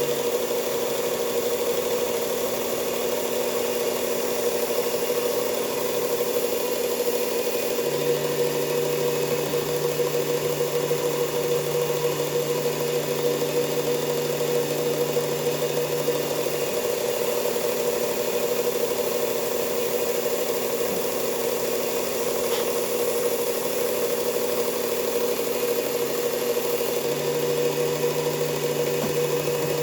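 Belt sander used for knife sharpening, running steadily with a constant motor hum; a lower part of the hum drops out and comes back for stretches of several seconds.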